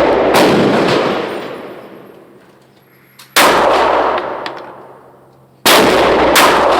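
Three single shots from a Beretta Pico .380 pistol, spaced about three and two and a half seconds apart, each followed by a long ringing echo off the range walls.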